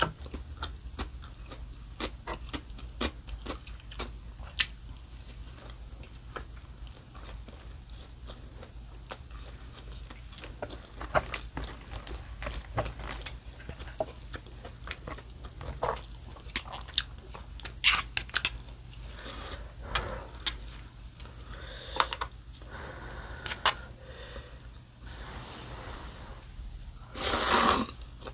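Close-miked chewing of fried bean curd sushi and instant ramen noodles: many small wet clicks and smacks of the mouth. Near the end, a longer, louder slurp of noodles lasting about a second.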